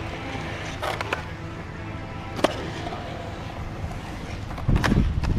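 Skateboard wheels rolling through a concrete bowl: a steady low rumble with a couple of sharp clacks, getting louder near the end.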